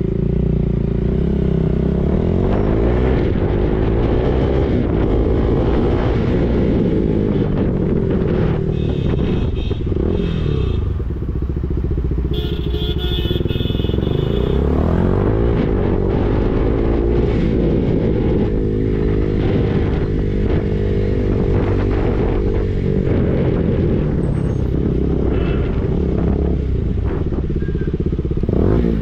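KTM RC sport bike's single-cylinder engine running under way, its pitch rising and falling again and again as the rider speeds up, changes gear and slows in town traffic. Short high tones sound twice, about a third of the way in and near the middle.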